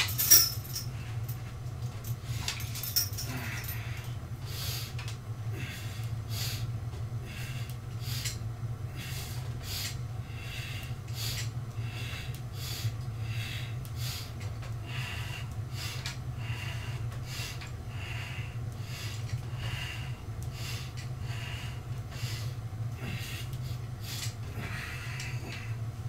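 A person breathing hard and rhythmically during an exercise, each breath a short noisy puff coming about one to two times a second, over a steady low hum. There is a sharp knock just at the start.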